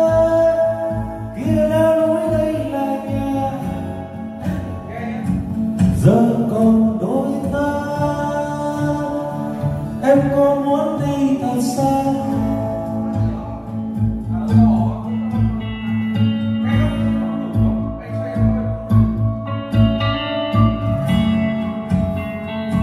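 Music: a song with a singing voice over a steady bass beat.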